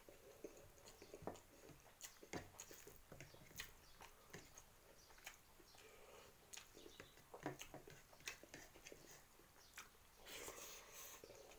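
Faint eating sounds of a person eating rice and Maggi noodles by hand: scattered short lip smacks and chewing clicks, with a longer rustling patch about ten seconds in as a handful goes into the mouth.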